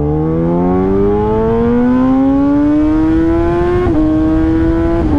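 Kawasaki ZX-10R's inline-four engine pulling under acceleration, its pitch rising steadily for nearly four seconds. The pitch then drops briefly at a gear change and holds steadier, with another small dip near the end, over wind rush.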